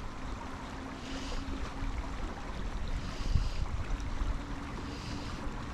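Wind gusting over the microphone with a low rumble, over the steady rush of a small stream.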